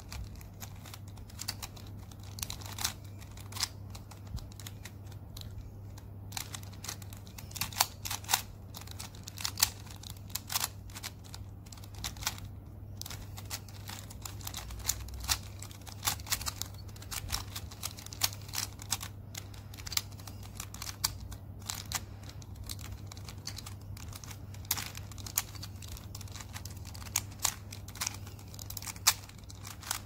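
Plastic twisty puzzle being turned by hand: irregular clicks and clacks as the pieces snap through their turns, over a steady low hum.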